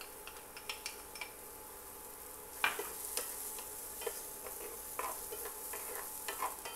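Chopped onion tipped into hot olive oil in a frying pan, at first with a few light clicks. About two and a half seconds in it starts sizzling, and the stirring utensil clicks and scrapes against the pan.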